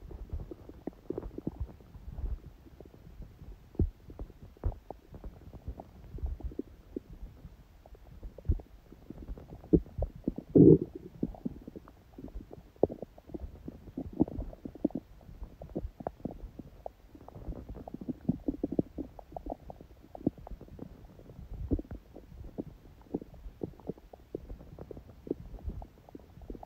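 A person's stomach gurgling and rumbling: many short, irregular gurgles and pops, with one louder gurgle about ten seconds in.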